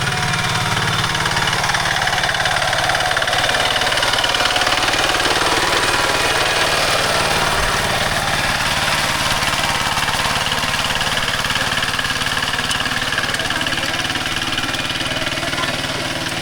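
Two-wheel tractor engine running steadily while pulling a harrow through a paddy field.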